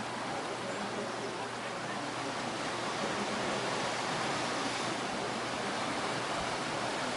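Surf breaking on a sandy beach, heard from a distance as a steady, even wash of noise.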